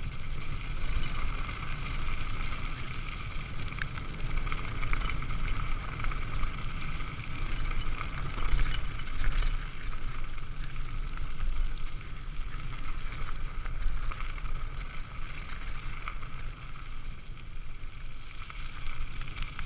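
Mountain bike rolling along a gravel trail: tyres crunching on the gravel, with wind buffeting the camera microphone and a few sharp rattles over bumps.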